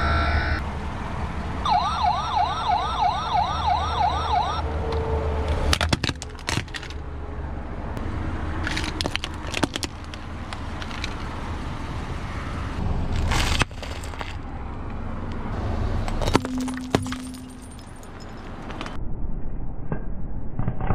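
A toy fire truck's electronic siren wails, rising and falling about twice a second for a few seconds. Then its plastic body cracks and snaps several times as the car tyre rolls onto it, over the low running of the car.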